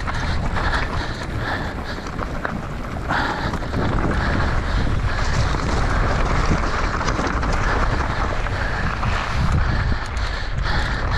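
Wind buffeting the camera microphone over the rumble and rattle of a mountain bike racing downhill, with the rider's heavy panting breaths, about two a second, clearest in the first few seconds and again near the end.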